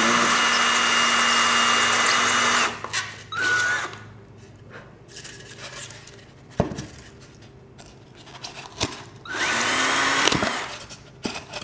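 Power drill with a 3/4-inch Forstner bit running at a steady whine as it bores through insulation foam, stopping about two and a half seconds in. There is a short burst of the drill a moment later, a few light knocks, and another brief run of the drill near the end.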